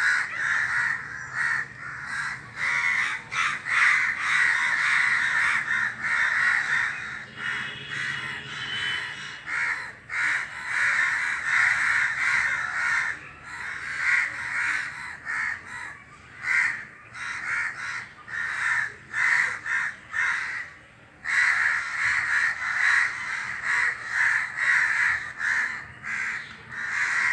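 A flock of crows cawing together, many calls overlapping almost without pause, with a short lull about three-quarters of the way through.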